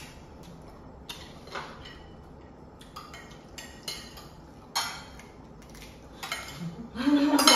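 Spoons clinking and scraping against bowls and plates as pani puri shells are filled, in scattered light clicks. A voice breaks in near the end.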